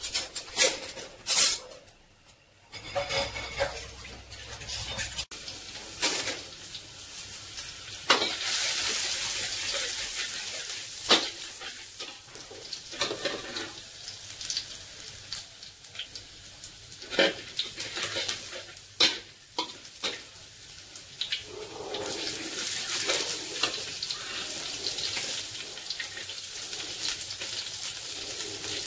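Stir-frying in a wok: oil sizzling with minced garlic and later carrots and green beans, while a spatula scrapes and knocks against the wok. A few dish clatters come at the start, and the sizzling grows louder in the last several seconds.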